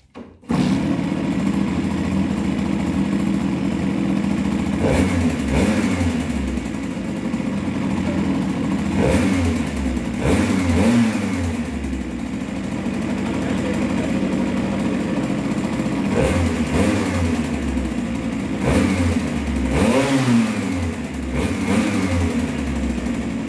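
Simson Schwalbe moped's single-cylinder two-stroke engine running and blipped on the throttle several times, its intake noise clearly audible through a small open pod air filter fitted in place of the stock airbox.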